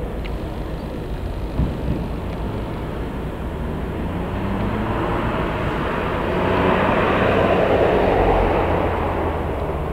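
A train running slowly through the station: a steady low hum with a rushing noise that builds to its loudest about seven to eight seconds in, then eases off. There is a short knock about one and a half seconds in.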